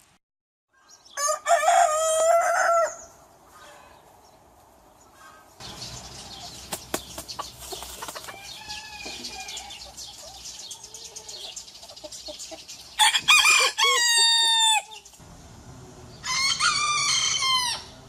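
Rooster crowing three times: one crow about a second in and two more near the end, each a long call with several pitched parts. In between, a quieter stretch holds background noise and fainter bird calls.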